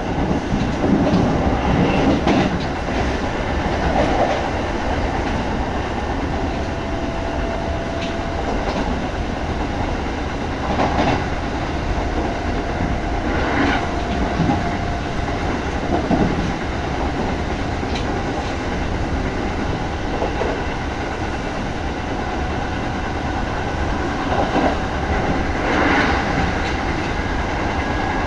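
Kintetsu 1200-series electric express train running at speed, heard from inside the passenger car. There is a steady rumble of wheels on rail, with irregular clacks every couple of seconds as the wheels pass over rail joints, and a faint whining tone that comes and goes.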